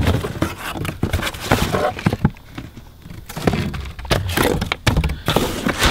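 Cardboard shipping boxes and their plastic wrapping being handled and shifted by hand: irregular rustling, scraping and knocks, quieter for a moment a little past two seconds in.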